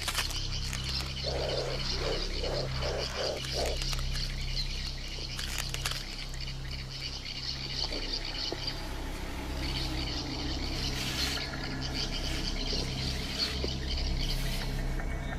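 A steady chorus of calling animals, frogs by their sound, with a run of about six short, low calls in quick succession a second or so in.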